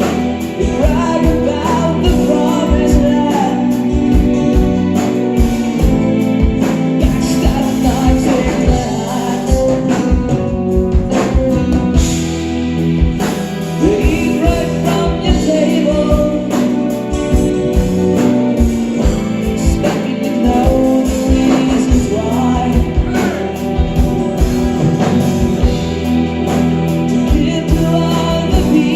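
A progressive rock band playing live at full volume, with drums keeping a steady beat under sustained chords and a singing voice.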